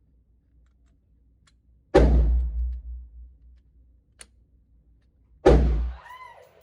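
Two single gunshots about three and a half seconds apart, each sharp crack followed by a long echoing decay, with faint clicks in between.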